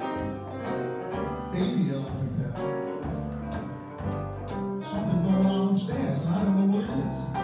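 Small jazz band playing, with a bass harmonica holding low, buzzy notes over piano, electric bass, guitar and drums, and regular drum hits keeping time.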